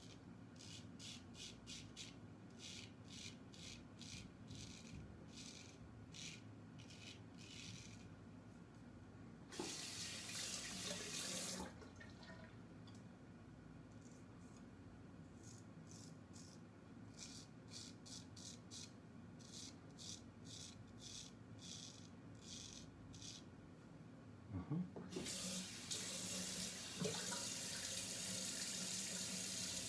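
Vintage 5/8 straight razor scraping through stubble on the third pass: short, quick strokes, heard as rapid runs of faint rasps. A sink faucet runs briefly about ten seconds in, then again steadily for the last five seconds, louder than the razor.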